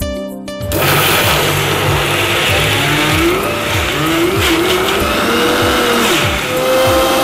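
Electric mixer grinder (mixie) with a stainless steel jar starting up less than a second in and running at full speed, grinding roasted sesame seeds with jaggery. Its whine wavers up and down over the noise of the motor.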